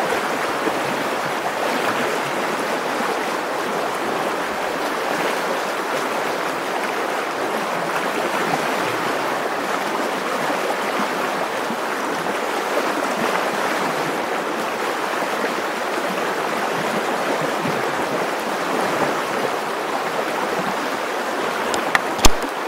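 Fast, shallow river current rushing and splashing around a wading angler's legs: a steady, even rush of water. A couple of sharp knocks near the end, as a grayling is lifted from the water.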